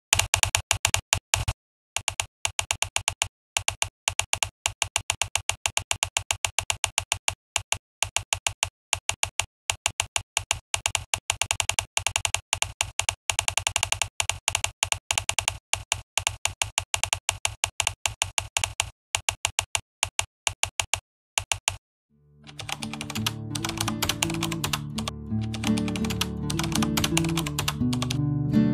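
Rapid keyboard-typing clicks in runs broken by brief pauses, like a typing sound effect, for about the first 21 seconds. Then music fades in about 22 seconds in.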